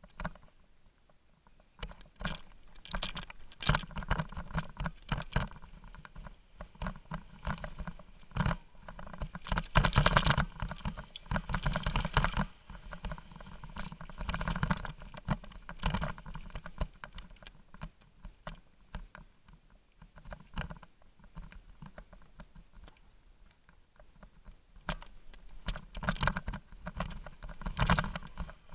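Mountain bike descending a rough dirt trail, picked up by a camera mounted on the handlebars: dense, irregular rattling and clattering of the bike and camera mount over bumps. It starts about two seconds in and comes in louder stretches.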